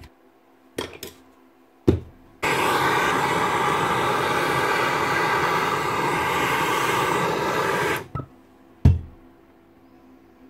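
Gas blowtorch burning with a steady hiss for about five and a half seconds as it heats a bearing seat in the metal gearbox housing of a Hilti TE905 demolition hammer. The hiss starts and stops abruptly. Single sharp clicks and knocks of handling come before it and one after it.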